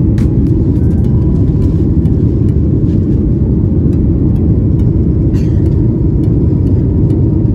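Jet airliner cabin noise heard from a window seat during the climb after takeoff: a loud, steady low rumble of the engines and the air rushing past the fuselage, with faint scattered clicks.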